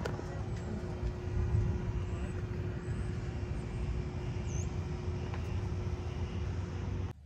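Wind buffeting the microphone outdoors, a fluctuating low rumble with a faint steady hum underneath; it cuts off abruptly near the end.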